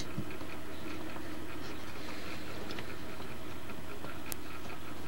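Steady low background hum with faint ticking, and two sharp clicks about a second apart near the end.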